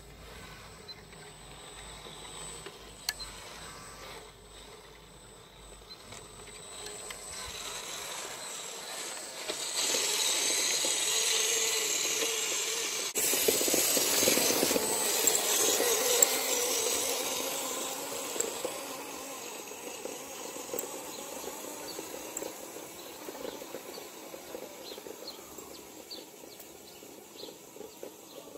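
WPL B24 GAZ 6x6 RC truck's electric motor and gearbox whining as it drives past close by, swelling to its loudest around the middle and fading as it drives away.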